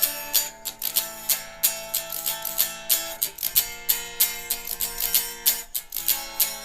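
Acoustic guitar strummed in a steady rhythm, playing chords of the song without vocals; the chord changes about halfway through and again near the end.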